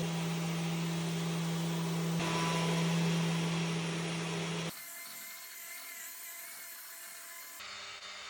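Electric power tool running steadily on wood for about four and a half seconds, then cutting off suddenly to a quieter stretch.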